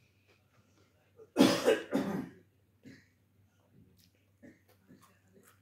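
A person coughing twice in quick succession, about a second and a half in, with faint scattered clicks around it.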